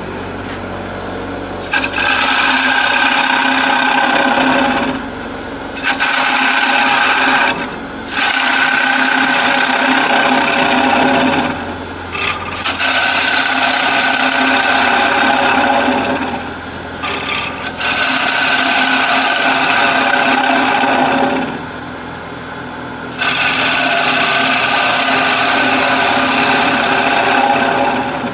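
Turning gouge cutting the inside of a spinning acacia bowl on a Laguna wood lathe, in about six passes of a few seconds each with short pauses between. The lathe runs steadily underneath throughout.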